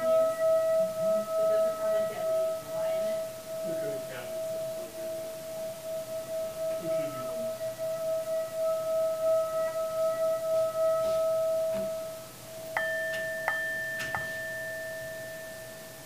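Tibetan singing bowl sung by rubbing a leather-wrapped mallet around its rim: a steady ringing tone with overtones and an even pulsing waver. Near the end it is struck about three times and left ringing as the tone slowly fades.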